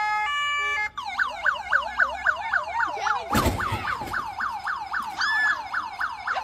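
Police van siren in a fast yelp, each cycle a quick falling sweep, repeating about four times a second. A short run of steady electronic tones comes first, and there is a single bump about three seconds in.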